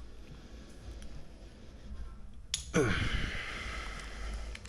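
A click, then a person's voiced groan falling in pitch that trails into a long breathy exhale of about two seconds, a sigh of effort while working a stubborn connector apart.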